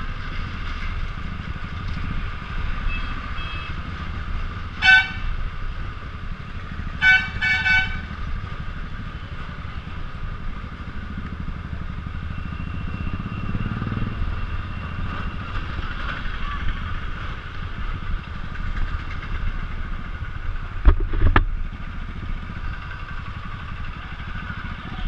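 Royal Enfield 500cc single-cylinder motorcycle engine running as the bike rides over a cobbled street. A horn beeps once about five seconds in and twice in quick succession a couple of seconds later, and a few low knocks come about three-quarters of the way through.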